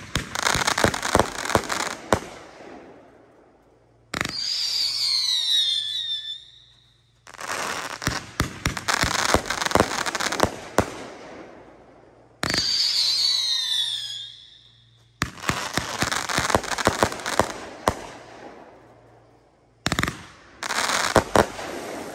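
Pyro Box NOS Explosion 30-shot 500 g firework cake firing: repeated bursts of sharp bangs and dense rapid crackle, each lasting two to three seconds. Twice, about 4 and 12 seconds in, a bang sets off several whistles at once that fall in pitch for about two seconds.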